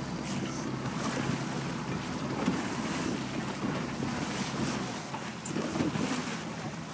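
Wind buffeting the microphone over water lapping against the hulls as a small boat comes alongside a schooner. A low steady hum drops away about five seconds in.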